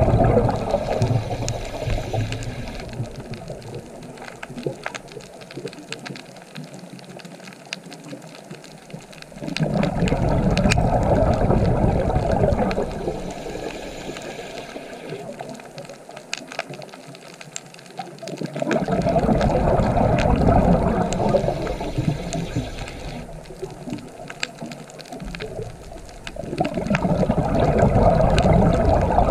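Rushing water that swells and fades in slow surges about every nine seconds, with scattered small clicks.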